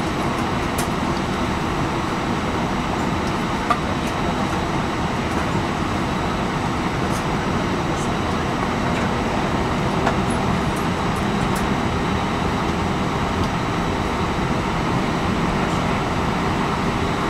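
Steady cabin noise inside an Airbus A319 taxiing: the jet engines running at idle with the air-conditioning rush, an even rumble and hiss with a faint steady hum. A single brief knock comes about four seconds in.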